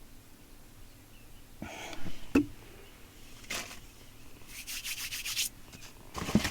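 Packaging being handled, rustling and rubbing in several short bursts, with a light knock about two and a half seconds in.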